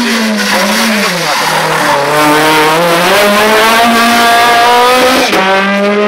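Rally car engine running hard through a tight corner. The pitch drops about a second in, then climbs steadily as the car accelerates, and the engine note changes abruptly about five seconds in.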